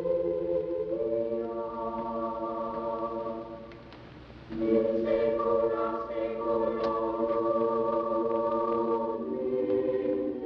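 A choir singing slow, long-held chords. The singing drops away briefly about four seconds in, then comes back in full.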